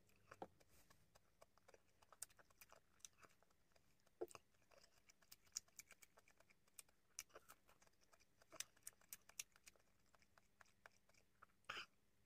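Close-miked eating mouth sounds: scattered small wet clicks and smacks of chewing and swallowing, with a louder bite into a strawberry near the end.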